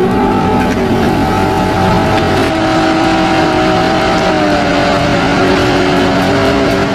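A machine engine running steadily under load, its pitch dipping slightly lower about four seconds in.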